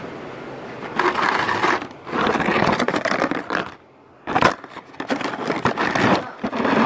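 Handling noise of a phone's microphone: rubbing and scraping against cloth or skin in stretches of about a second, with sharp knocks, briefly cutting out just before 4 s.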